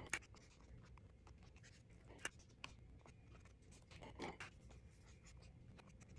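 Faint clicks and taps of felt-tip markers being put down and picked out of a glass cup, with light scratching of a marker tip on sketchbook paper.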